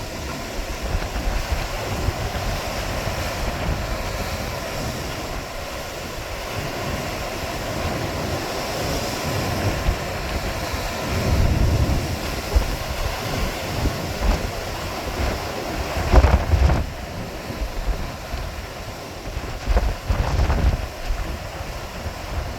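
Strong wind buffeting the microphone over the wash of sea waves, with heavier gusts rumbling about halfway through, again later, and near the end.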